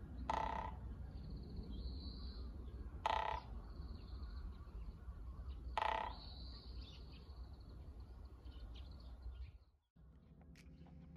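A crow cawing three times, about three seconds apart, with small birds twittering in the background over a low outdoor rumble. The sound fades out near the end.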